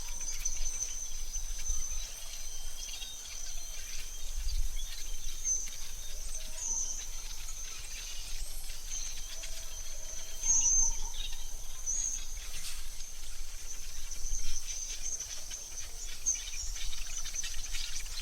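AI-generated forest ambience: a steady high insect-like drone runs throughout, with scattered short bird chirps, a few brief low whistled notes and a faint low rumble.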